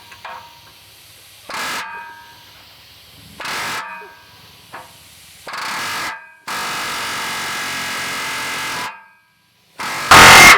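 Pneumatic air hammer fired in short buzzing bursts about two seconds apart, then run for a longer stretch, working at a seized exhaust muffler bolt. The last burst, near the end, is the loudest.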